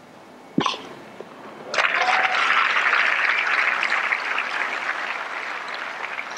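A single sharp crack of a tennis ball struck by a racket, then crowd applause that starts about two seconds in and slowly fades.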